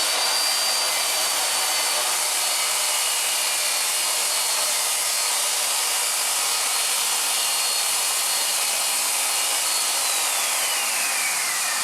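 Circular saw spinning up and cutting through a sheet-goods panel: a steady high whine over the cutting noise. About ten seconds in, the motor's pitch falls away.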